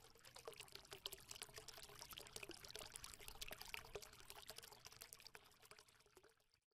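Faint logo sound effect: a dense patter of tiny ticks, like trickling or pouring water, that swells and then fades away shortly before the end.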